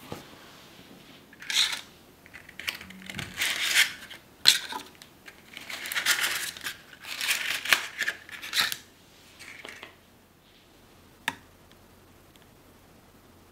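Paper cupcake liners crinkling and rustling in a string of short bursts as they are pulled apart and pressed into a metal muffin tin. A single sharp tap comes near the end.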